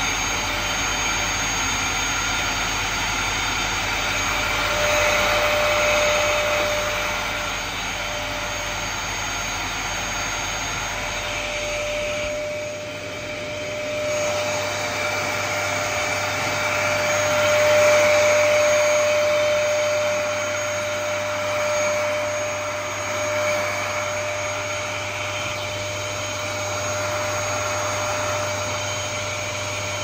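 Dyson Stowaway Animalpro cylinder vacuum cleaner running steadily at full speed, a constant rushing hiss with an even motor whine.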